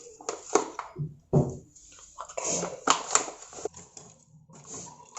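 Kitchen utensils and cookware being handled: a few scattered knocks and clicks, with a short stretch of scraping or rustling about two and a half to three seconds in.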